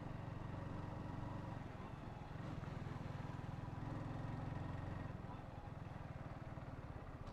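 Honda CBR125's small single-cylinder four-stroke engine running steadily while riding, with a light rush of road and air noise.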